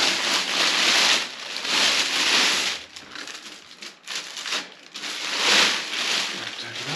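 A plastic bag rustling and crinkling as it is pulled off a clear acrylic turntable dust cover and crumpled. The bag is loud in two spells, dipping quieter for a second or so around the middle.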